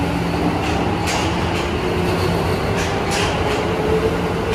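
Tokyo Metro Marunouchi Line 2000-series subway train pulling out of the station. Its traction-motor whine rises steadily in pitch as it accelerates, over rumbling wheel noise with a few sharp clacks from the wheels on the rails.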